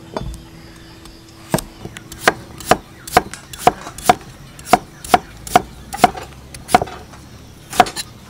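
A knife slicing through a pale green gourd and knocking on a wooden chopping block. About a dozen sharp chops come roughly two a second, starting about a second and a half in.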